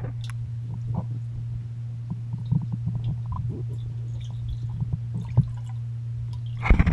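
Muffled sound heard through water by a submerged camera: a steady low hum with small scattered knocks and taps. Near the end, loud splashing starts.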